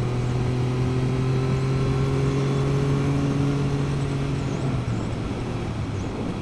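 Triumph 900 triple's three-cylinder engine running through a 3-into-1 exhaust under way on the road, its note rising slowly and then dropping about five seconds in.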